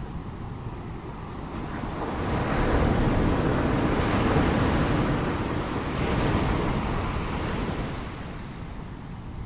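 Ocean waves breaking and washing in, rushing noise that swells about two seconds in, holds for a few seconds with a second surge, then ebbs away, with wind on the microphone.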